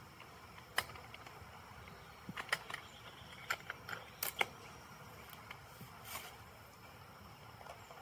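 Scattered light clicks and knocks from a wooden beehive being handled, over a quiet outdoor background.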